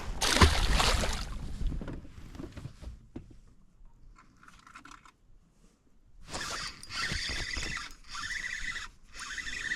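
A brief rush of noise in the first second or so, then, from about six seconds in, a fishing reel being cranked in three spells with short pauses: a steady rasping whir as line is wound in on a retrieve.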